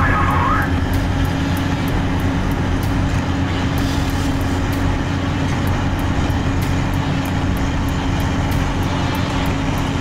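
Steady engine rumble with a low hum and a hiss over it, like a heavy vehicle or turbine running, unchanging throughout.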